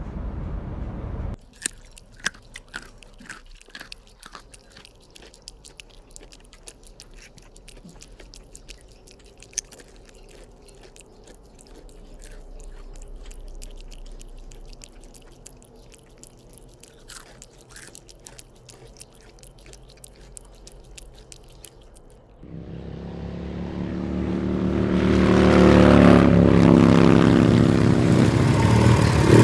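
An animal crunching and chewing something hard: a rapid, irregular run of small clicks and crunches. About 22 seconds in, a loud motor noise comes in and grows louder over a few seconds.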